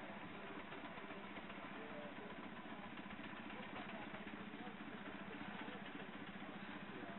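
Small ride-on miniature traction engine running steadily as it is driven along, a continuous mechanical engine sound.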